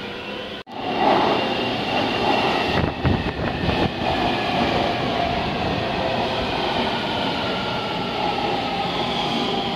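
Taipei Metro C321 train arriving at an underground station, its Siemens GTO-VVVF propulsion giving a whine of several tones as the cars roll past and slow, with a few wheel clacks over the rail about three seconds in. The sound drops out for a moment under a second in, at an edit cut.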